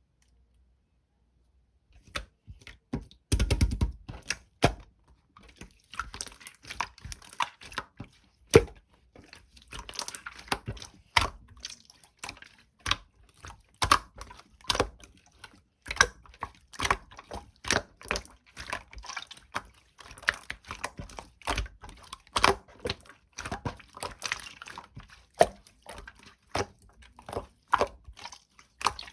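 Slime being pressed, poked and stretched by hand, giving a string of sticky wet pops and clicks, one to three a second, starting about two seconds in.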